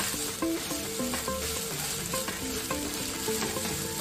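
Instant noodles with shredded cabbage, carrot and onion sizzling in a hot oiled frying pan as a wooden spatula stirs and tosses them. Light knocks of the spatula against the pan come through the steady sizzle.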